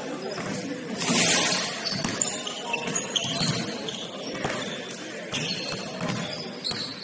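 Basketball game on a gym court: sneakers squeak in short high chirps and a ball bounces, with a brief loud burst of noise about a second in.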